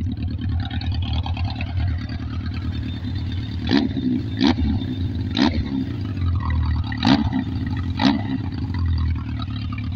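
Yamaha XJR1200 air-cooled inline-four idling through a homemade twin exhaust with baffle inserts and glass-wool packing. It is blipped sharply five times, between about four and eight seconds in, with a sound called still fierce.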